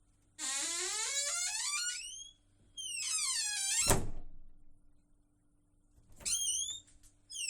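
Squeaking door hinges letting out long, high squeals that glide down in pitch, twice. A loud thunk comes about four seconds in, and two short squeaks follow near the end.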